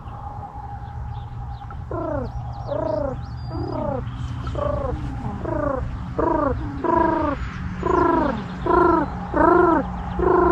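Bird calls: a run of short, pitched calls, one or two a second, starting about two seconds in and growing louder toward the end, over a low steady hum.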